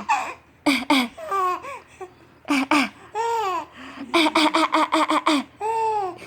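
A young child laughing in bursts, with a quick run of short laugh pulses a little past the middle.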